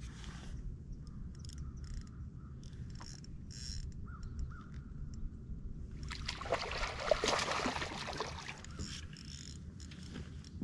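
A hooked bass thrashing and splashing at the surface for about two seconds, roughly six seconds in, over a steady low rumble of wind and water around the boat. Two short chirps sound around four seconds in.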